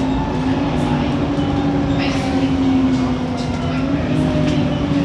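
Bus engine, cooling fans and turbocharger heard on board a moving bus: a steady low drone with a fainter whine above it, its pitch dipping slightly and rising again near the end.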